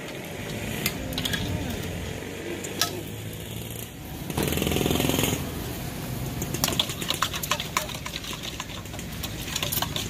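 Metal spoon clinking and scraping against a stainless steel mixing bowl while spicy yum dressing is stirred. The clinks come in irregular runs, thickest in the second half. A steady rumbling hum runs underneath and grows louder for about a second near the middle.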